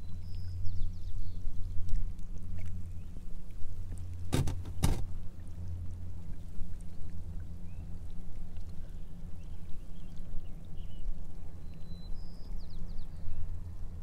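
Water lapping and gurgling against a drifting kayak's hull, with two sharp knocks about half a second apart a little over four seconds in. Faint short high bird calls come near the start and again near the end.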